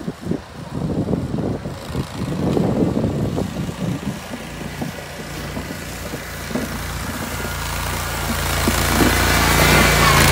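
Engine of a Toro GrandStand MultiForce stand-on machine running as it plows wet snow, getting steadily louder as it comes closer, its steady engine hum clear from about halfway in.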